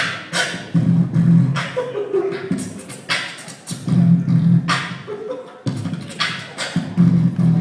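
Vocal percussion (beatboxing): mouth-made drum sounds in a steady groove, with sharp snare-like hits, deep booming kicks that come in clusters about every three seconds, and short falling vocal swoops between them.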